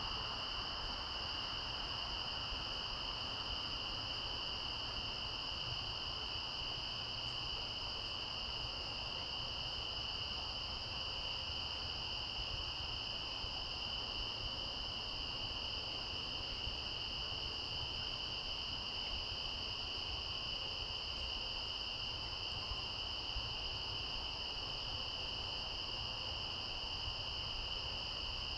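Steady chorus of insects: a continuous high-pitched trill at two pitches, over a low background hiss.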